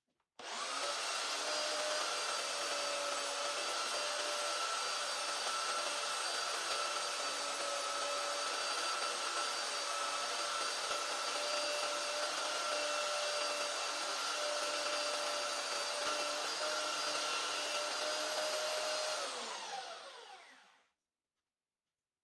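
An electric power tool's motor switched on, running steadily with a constant high whine, then switched off near the end and winding down with falling pitch.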